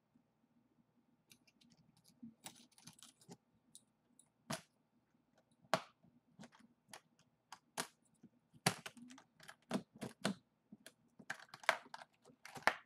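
Scattered clicks, taps and light rustling of hands fiddling with a makeup train case's lock and keys, busier in the second half.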